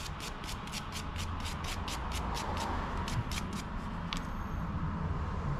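Brush applicator scratching thread sealant onto the threads of a brass pipe fitting in quick, even strokes, about five a second, stopping a little after halfway, with one sharper click just after. A steady low hum runs underneath.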